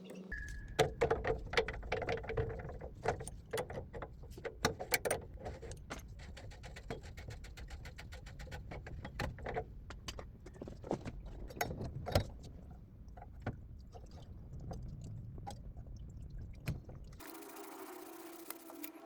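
Many light clinks and knocks, like metal parts being handled, over a low steady rumble that stops about 17 seconds in.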